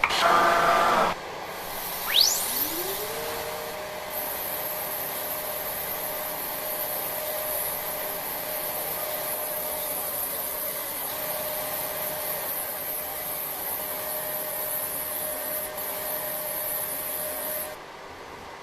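CNC router spindle spinning up, its pitch rising and levelling off, then running steadily at speed with a high whine. It shuts off about a second before the end.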